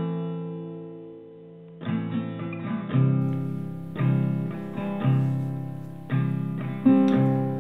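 Background music: guitar chords struck about once a second, each left to ring and fade, after a longer pause near the start.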